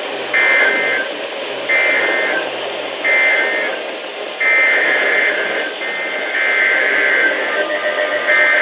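Emergency Alert System SAME header data: loud, shrill, buzzing digital bursts, three short ones about a second apart, then longer bursts in the second half running into steady alert tones near the end.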